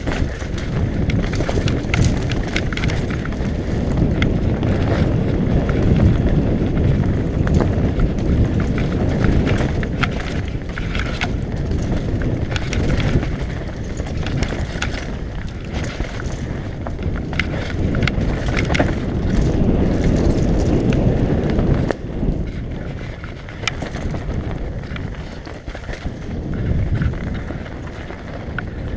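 Wind rushing over a helmet-mounted camera microphone as a mountain bike descends a dirt trail at speed, with tyres rolling over the dirt and frequent clicks and rattles from the bike over bumps and roots. The noise eases somewhat a little after twenty seconds.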